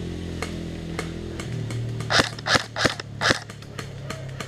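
Airsoft gun firing single shots: five loud sharp pops in quick succession about two seconds in, among fainter scattered pops of other airsoft fire.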